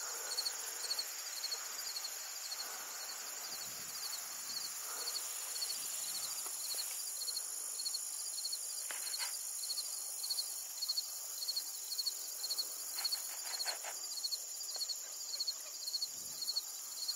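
Insect chorus over the marsh: a steady high-pitched trilling with a pulsed call repeating about two to three times a second. A few faint, short chirps come through around the middle and again later.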